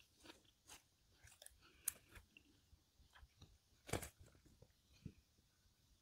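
Faint close-miked chewing of food, with scattered small mouth clicks and two sharper crunches about two and four seconds in.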